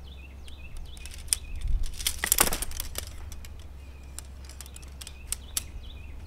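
Metal tent poles clinking and rattling as the folded sections are shaken out and snapped together, with a cluster of louder clicks between about one and two and a half seconds in.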